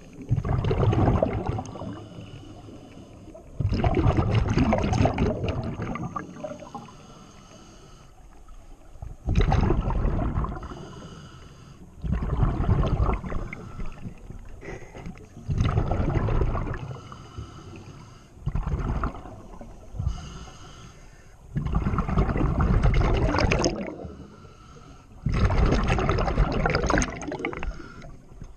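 Scuba diver's breathing through a regulator underwater: a rush of exhaled bubbles about every three seconds, eight in all, with quieter gaps between.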